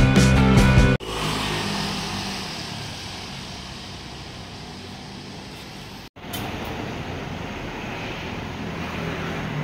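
Music cuts off about a second in, giving way to street traffic noise. A vehicle goes by and fades away, and after a brief break steady street traffic hum continues.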